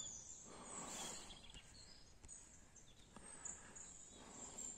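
Near silence: faint outdoor background noise with a few faint, high bird chirps.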